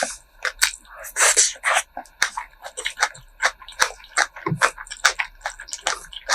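Close-miked eating sounds: chewing with a dense run of short wet clicks and smacks, and a longer noisy burst about a second in.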